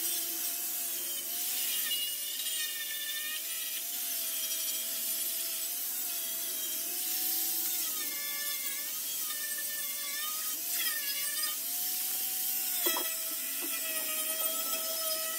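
Hand-held power tool whining on a car's sheet-metal body, its pitch wavering and dipping as it bites in, while seam sealer and spot welds are ground and drilled out of the panel.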